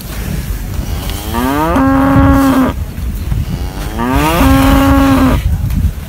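Two long moos from a bull, starting about a second and about four seconds in: each opens with a rising slide, then holds a steady low note for about a second. A constant low rumble runs underneath.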